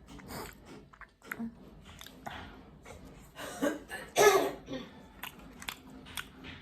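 Close-up eating sounds: chewing and crunching, with scattered short clicks. There is one louder noisy burst about four seconds in.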